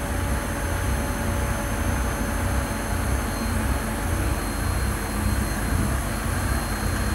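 Nissan Y61 Patrol with a Mercedes OM606 six-cylinder turbo diesel under load on a chassis dyno: the engine, drivetrain and big off-road tyres on the rollers making a loud, steady noise with a deep pulsing rumble.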